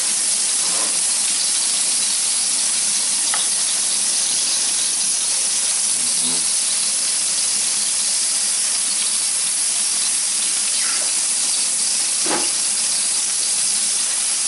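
Fat sizzling steadily on a Severin electric grill, an even hiss from the bacon and lard cooking on its glowing elements and drip tray below.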